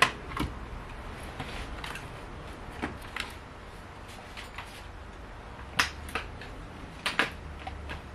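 Scattered sharp clicks and clacks of hand tools and parts being handled while stripping a car's interior. Several come in pairs about half a second apart, the loudest at the very start.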